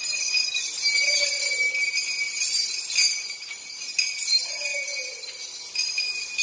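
Continuous metallic jingling with high ringing tones from the chains and metal gear on a walking Asian elephant.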